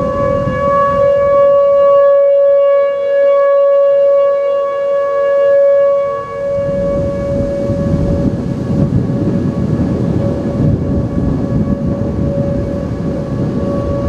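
Whelen outdoor tornado warning sirens sounding a steady tone. Two sirens of slightly different pitch sound together until about six seconds in, then only one. A loud, low rumbling noise underneath grows much stronger after the second siren drops out.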